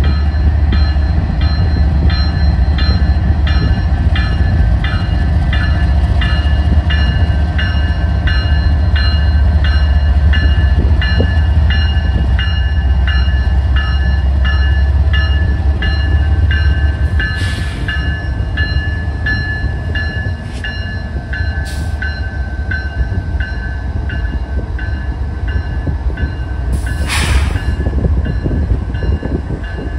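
Freight train's lead GE ES44AC diesel locomotives rolling past, their engines giving a heavy low rumble that eases a little over halfway through as the lead units go by. Over it a grade-crossing bell dings steadily about twice a second, and a few short hissing bursts come in the second half.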